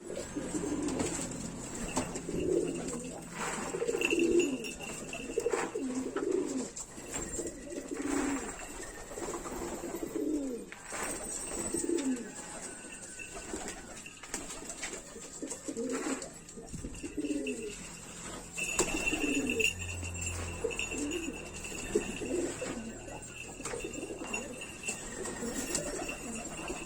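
Domestic pigeons cooing, with low throaty coos repeating one after another, often overlapping.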